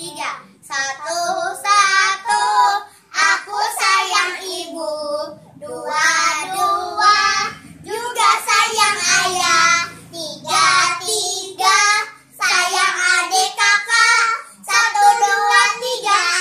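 Young girls singing a children's song together in phrases with short pauses between them.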